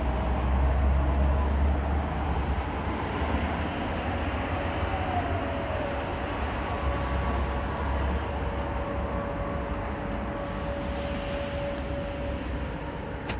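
Steady low rumble like distant engine noise. A faint long tone enters about five seconds in and holds until near the end.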